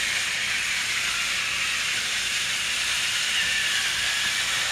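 Battery-powered TrackMaster toy engines running along plastic track: a steady, high-pitched whir from their small motors and wheels.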